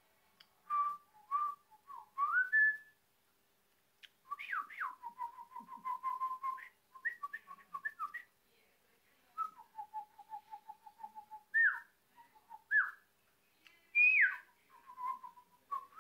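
Pet budgerigar whistling: short clear notes and rising and falling glides, with two runs of quick repeated notes on one pitch, about six a second, in the middle of the stretch.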